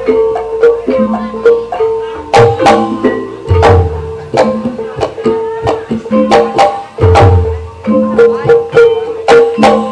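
Live ebeg gamelan accompaniment: struck keyed instruments playing a fast repeating melody over kendang hand-drum strokes, with a deep drum beat about every three and a half seconds.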